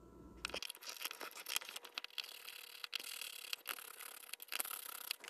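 Hands prying and sliding the cover off the eSAP-30 active probe's case: a run of scraping and rubbing with many small clicks, starting about half a second in.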